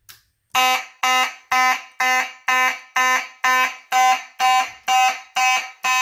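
Simplex 2901-9838 fire alarm horn sounding in even, loud pulses about twice a second. This is the system's alarm signal, set off by the Simplex 2098-9201 smoke detector under test.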